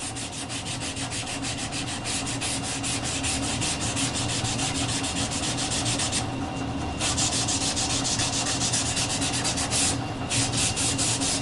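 Cotton rag wiping dye onto a maple board in quick back-and-forth strokes, about five a second, a dry scratchy rubbing that stops briefly twice.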